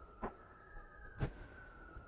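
Distant aerial firework shells bursting: two sharp bangs about a second apart, the second one louder. A faint steady high tone drifts slowly downward underneath them.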